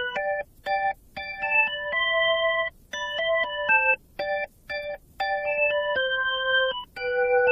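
Background music: a keyboard tune played as short, separate chords and notes, with brief gaps between them.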